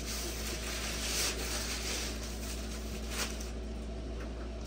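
Plastic cover bag rustling as it is pulled down off a 3D printer, with brief louder swells about a second in and again past three seconds.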